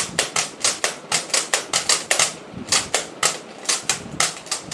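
Nerf Rampage pump-action blaster pumped rapidly in slam-fire, the priming handle sliding back and forth. Its plastic mechanism clacks about four to five times a second.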